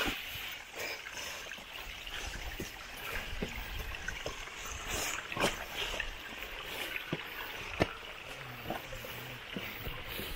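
Small mountain waterfall, water trickling and splashing steadily over rocks, with scattered short sharp ticks.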